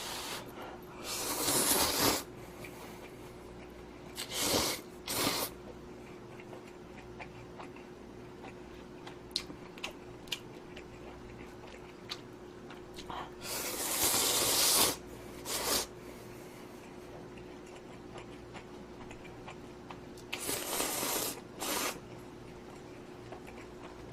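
A person slurping spicy instant ramen noodles in four loud bursts of about a second each, with small clicks and chewing between them. A faint steady hum runs underneath.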